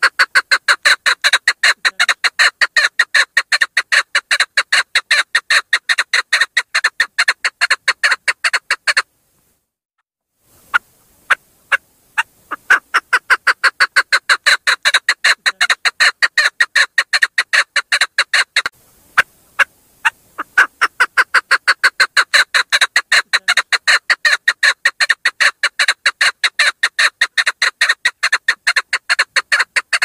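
Female chukar partridge calling in long runs of rapid, repeated clucking notes, several a second, with a pause about nine seconds in and another about nineteen seconds in. It is the female's call that draws in male chukars.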